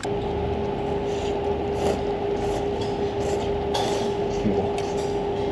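A fan running: a steady hum with one constant mid-pitched tone, and a few faint clicks over it.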